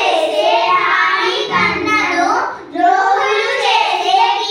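Children singing a song together, with a short breath about halfway through.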